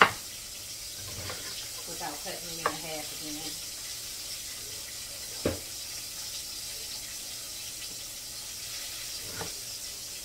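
Chef's knife slicing through cabbage onto a wooden cutting board: a few sharp knocks, the loudest right at the start, over a steady hiss.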